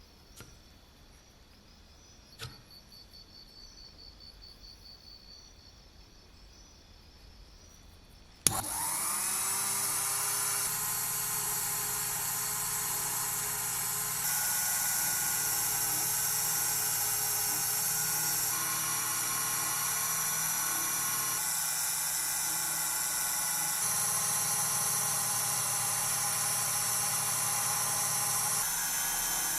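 A small high-speed rotary polishing tool switched on with a click about eight seconds in. Its motor whines up to speed within a second, then runs steadily at high pitch. Before it starts there are only faint handling sounds.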